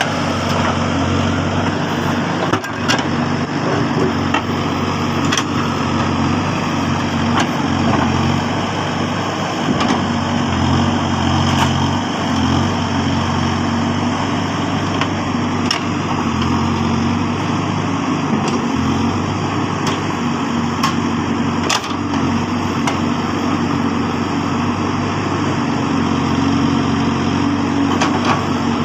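Case backhoe loader's diesel engine running steadily under work, with occasional sharp knocks spaced several seconds apart.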